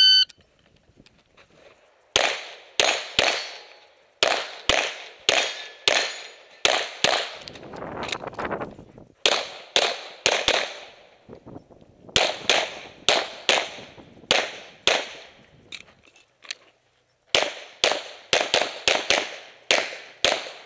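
A shot timer's start beep, then a pistol fired in quick strings of several shots each, with short pauses between strings: about thirty shots in all.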